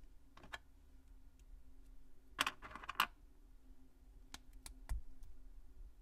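Small plastic Plus-Plus building pieces clicking as they are pressed and snapped together by hand, with a quick run of clicks about halfway through ending in one sharp snap. A few single clicks and a dull knock follow later.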